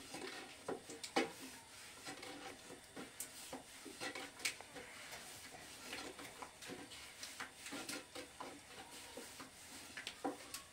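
Long thin wooden rolling pin rolling out flatbread dough on a round wooden board, with irregular light knocks and clicks of the pin against the board.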